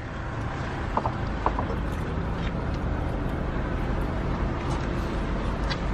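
Steady low hum of a car heard from inside its cabin, with a few light clicks.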